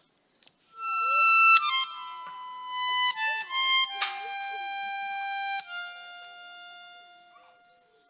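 A reedy wind instrument, harmonica-like, playing a short phrase of held notes that step down in pitch, ending on a long low note that fades away.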